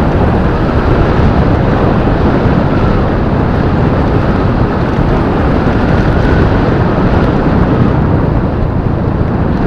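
Motorcycle on the move, heard from the rider's microphone: a loud, steady rush of wind over the microphone with the engine running underneath, its faint tone rising and falling.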